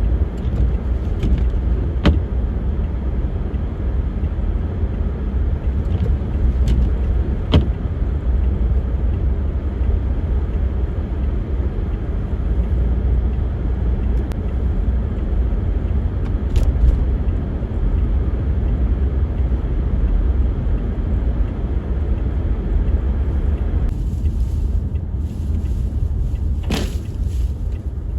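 Blizzard wind blowing over the microphone: a steady, deep rumbling rush with a few sharp clicks.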